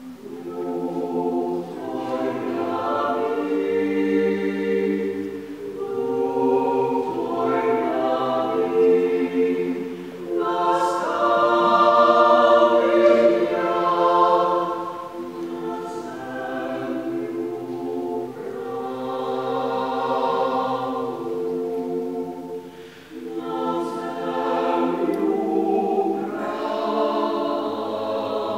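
A small Georgian choir of five mixed voices, men and women, singing a cappella in sustained chords. The singing starts at the opening and runs in long phrases with brief breaks for breath, one about a third of the way in and another near the end.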